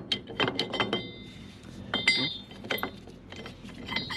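Metal tools and brake parts clinking against each other, about half a dozen irregular strikes, some of them ringing on briefly.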